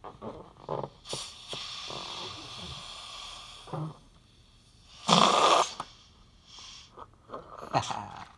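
A person blowing air into a rubber balloon: a long breathy blow, then a shorter, louder puff about five seconds in, with small rubbery clicks and mouth noises between.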